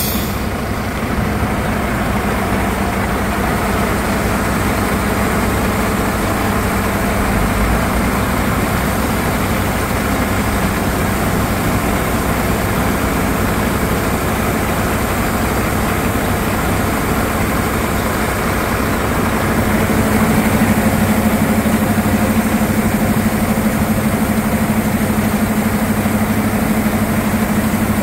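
Iveco Trakker AD410T50 tipper's diesel engine running steadily while the hydraulic ram holds the tipper body raised. A short knock comes right at the start, and about two-thirds through the engine's hum grows a little louder and stays so.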